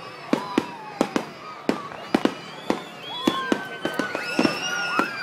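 Aerial fireworks shells bursting overhead: an irregular string of sharp bangs, about a dozen, some coming in quick pairs.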